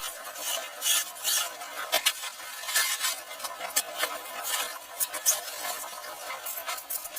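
Irregular light clicks and scrapes of small hard objects being handled close by.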